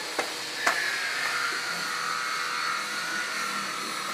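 Small electric motor running steadily with a wavering high whine, typical of a hand power tool. Two sharp knocks come in the first second, about half a second apart.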